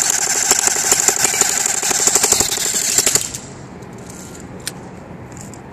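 Cyma AK airsoft electric gun (AEG) firing a full-auto burst: rapid, even clatter over a high whine, cutting off about three seconds in. A single sharp click follows near the end.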